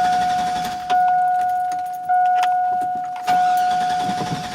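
2001 GMC Sierra's dashboard warning chime dinging about once a second, each ding fading before the next, with faint key clicks; it stops near the end.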